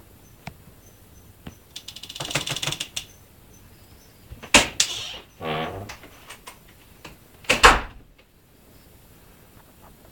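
A rapid clatter of clicks, then a sharp knock about halfway through, a short falling creak, and a heavier thump near the end.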